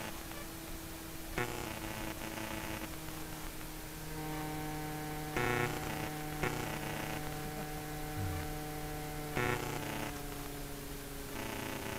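Electric motor and rotor of a 450-size RC helicopter running at low speed on its landing pad: a steady hum whose higher overtones grow stronger about four seconds in. Four brief rushes of noise break in over it.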